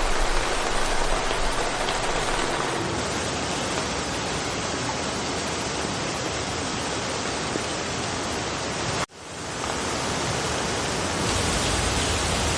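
Steady rain falling in a forest, an even hiss with no single drops standing out. About nine seconds in it cuts out abruptly and fades back in over a second, like a splice in a loop.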